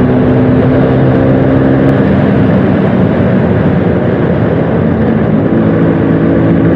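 A 1994 Bajaj Super 150 scooter's 150cc two-stroke engine running while the scooter is ridden along. Its steady engine note loosens for a few seconds in the middle, then settles again.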